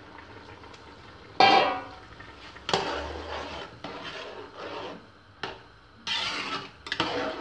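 Metal cookware clangs with a ringing strike about a second and a half in, and a second knock follows a second later. Then a metal spatula stirs rice through boiling stock in a large aluminium pot, in repeated scraping, sloshing strokes against the pot.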